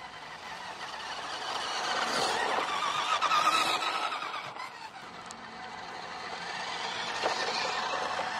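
Whine of a WPL D12 RC truck's small electric motor and gears as it drives over a dirt track. The whine grows louder as the truck passes close by about three seconds in, fades, then builds again as a second truck approaches near the end.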